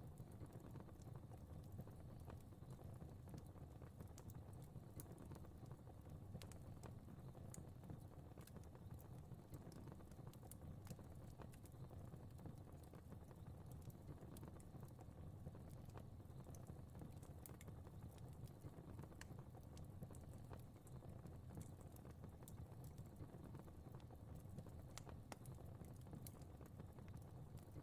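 Quiet fire crackling: many small, irregular pops and ticks over a low steady rumble of the flames.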